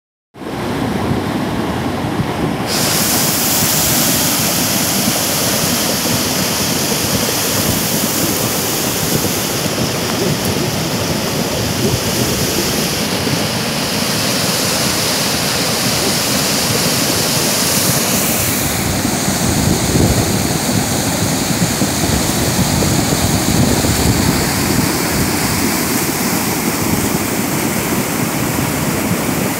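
Muddy floodwater of a river in spate rushing and churning down its channel, a loud steady noise of water.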